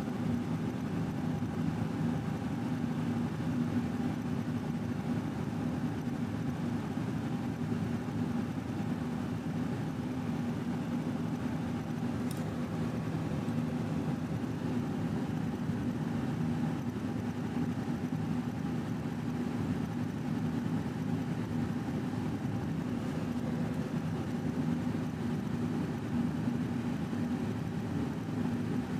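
A steady low mechanical drone with an even hum that does not change.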